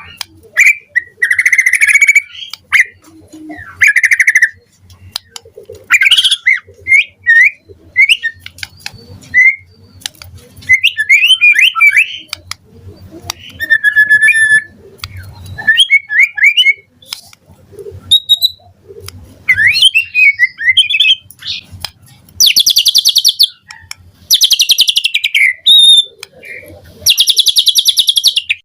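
White-rumped shama singing a loud, varied song of short whistled phrases, sliding notes and quick chattering runs. In the last third come three longer, harsh rapid trills.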